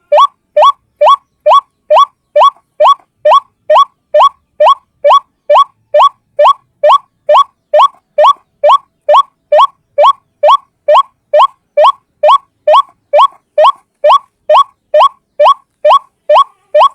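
White-breasted waterhen (ruak-ruak) call repeated as a lure: a short, rising, squeaky note over and over at a steady pace of about two and a half notes a second.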